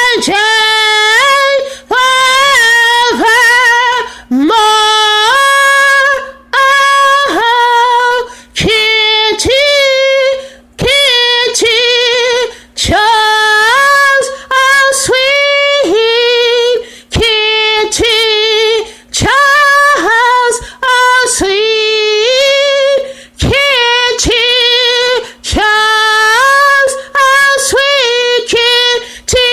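A woman singing unaccompanied, a run of short held notes in a high voice with brief breaks between them, over a faint steady hum.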